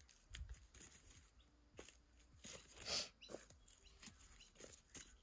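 Charred wood and stumps being shifted by a gloved hand in a stone fire ring: scattered light knocks, scrapes and crunches of burnt wood and ash, the loudest a scrape about three seconds in.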